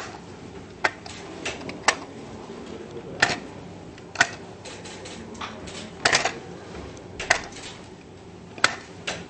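Sharp plastic clicks as the teeth of a toy shark-teeth game are pressed down one at a time, about ten clicks at irregular intervals.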